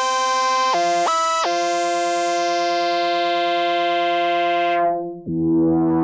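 Moog Grandmother analog synthesizer playing a sustained pad patch built from its two analog oscillators, several pitches sounding together. It makes a few quick note changes in the first second and a half, then holds a long chord that grows darker and cuts out about five seconds in. A new, lower chord then swells brighter.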